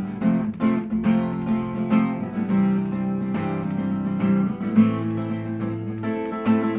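Acoustic guitar strumming chords in an instrumental break of a stripped-down pop song, with no singing.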